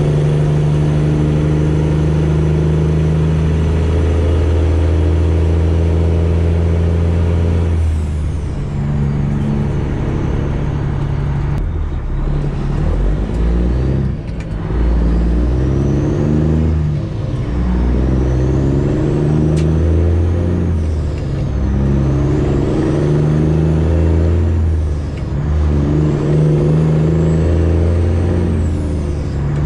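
Freightliner Classic XL semi truck's straight-piped diesel engine running under way. It holds a steady pitch for about the first eight seconds, then rises and falls in pitch several times, with brief dips in loudness as it changes gear.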